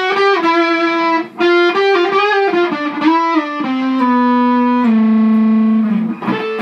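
Electric guitar played through a modded Fender Champ 600 valve amp into a Celestion G12H 12-inch speaker, pushed by a fuzz pedal: a quick run of distorted single notes, then two long sustained notes near the end.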